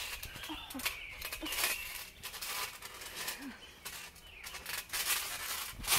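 Soft thuds and rustling of people moving on a backyard trampoline mat, scattered and irregular, with a firmer thump near the end.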